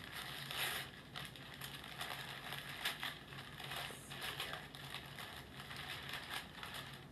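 Paper wrapping rustling and crinkling in irregular bursts as a bundle of clothing is unwrapped by hand.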